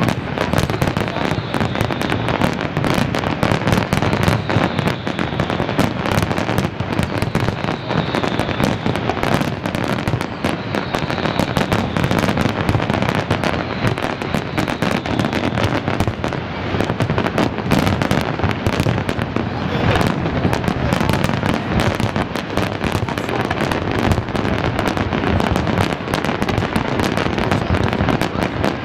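Large fireworks display: a dense, unbroken barrage of aerial shell bursts, bangs and crackling, many going off at once.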